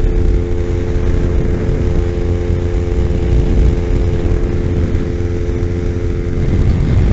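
Kawasaki Ninja 250's parallel-twin engine running steadily at high revs, near 11,000 rpm, at freeway cruising speed, with a heavy wind rumble on the microphone.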